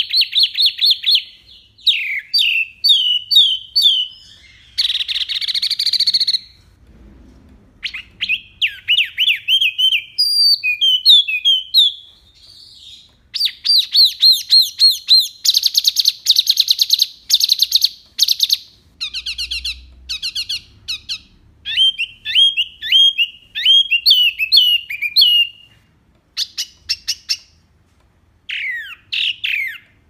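Wambi mini songbird singing a loud, clear, varied song: fast trills and runs of high chirping notes, phrase after phrase, with brief pauses between them.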